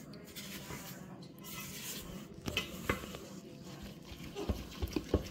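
A silicone spatula stirring thick cookie dough in a stainless steel mixing bowl: soft scraping, with several light knocks against the bowl in the second half.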